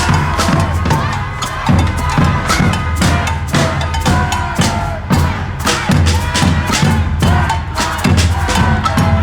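Protest crowd with drums beating continuously over many voices.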